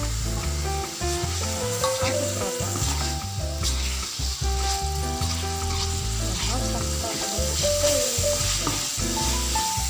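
Blended spice paste sizzling in hot oil in an aluminium wok, with a metal spoon stirring and scraping it around the pan, over background music.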